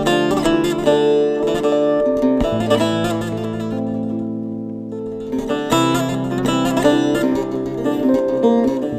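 Background music led by plucked acoustic guitar, cutting off at the end.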